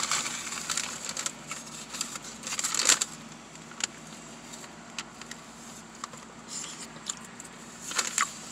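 Paper fast-food wrapper crinkling and rustling as it is handled, loudest about three seconds in, then a few scattered small clicks and another short rustle near the end.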